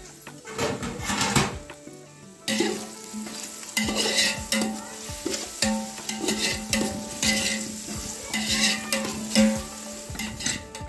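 Sliced onions sizzling in hot oil in a large aluminium pot while a perforated steel ladle stirs and scrapes through them in repeated strokes. The stirring gets louder about two and a half seconds in.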